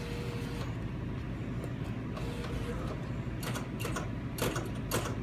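Steady low hum of a vending machine. From about three and a half seconds in, a run of sharp, irregular clicks and knocks on the machine.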